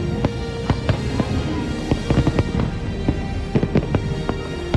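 Aerial fireworks going off in quick, irregular succession: bangs and crackles, one after another, with music playing underneath.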